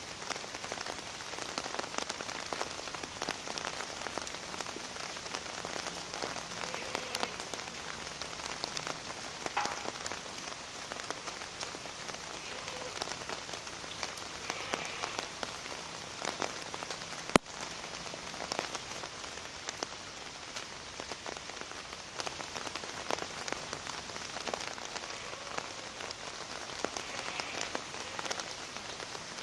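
Steady rain falling, a continuous hiss made of many separate drop hits. A single sharp click sounds a little past the middle.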